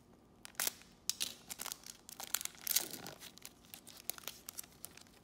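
Wrapper of a sealed trading-card pack crinkling and tearing as gloved hands rip it open, a quick irregular run of crackles that tails off near the end.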